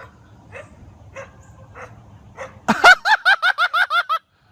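Dog barking: a few faint yips about every half second, then a rapid run of about ten high-pitched yaps that cuts off suddenly near the end.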